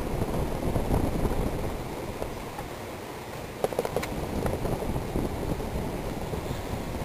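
Sierra Victorian Copy 52-inch ceiling fan with an Emerson K55 motor running: a steady, low rushing whoosh of the turning blades and motor, with a few light clicks about halfway through.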